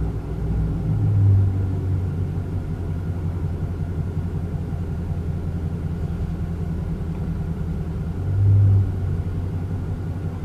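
Dodge Scat Pack's 6.4-litre 392 HEMI V8 running with its catalytic converters removed, giving a steady low exhaust drone. It swells louder twice: about a second in, and again about eight and a half seconds in.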